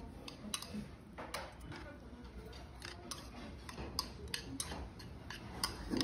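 Stainless steel chopsticks clicking and scraping against a ceramic bowl while mixing barley rice with gochujang, in irregular sharp clicks several a second.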